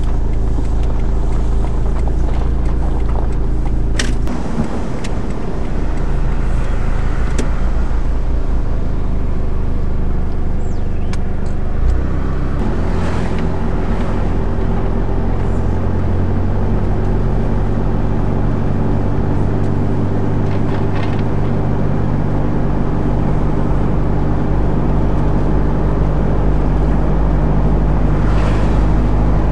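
Car engine and road noise heard from inside the cabin while driving: a steady low hum, with a few sharp clicks in the first half.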